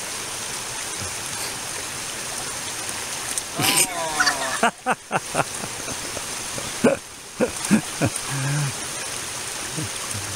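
Steady rush of a shallow creek running over rocks. About four seconds in, a brief voice cry, followed by a few sharp knocks over the next few seconds.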